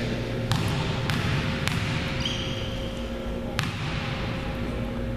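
A basketball bouncing three times on a hardwood gym floor, about half a second apart, as the free-throw shooter dribbles before the shot. A short high squeak comes about two seconds in, and there is one more bounce later.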